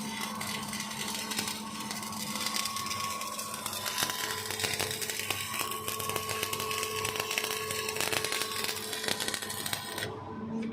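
Electric arc welding: a dense, steady crackle of the arc with a faint hum underneath. The crackle cuts off abruptly near the end.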